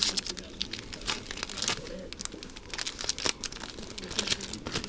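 Foil wrapper of an Upper Deck Series Two hockey card pack crinkling and tearing as it is ripped open and the cards are pulled out, in a quick run of irregular crackles.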